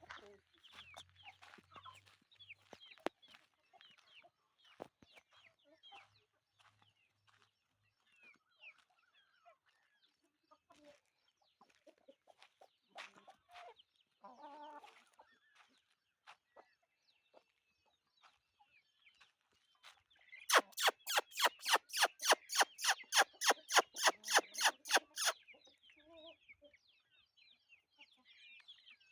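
Chickens clucking and chirping softly, with a loud run of rapid, evenly spaced pulses, about five a second, lasting some five seconds late on.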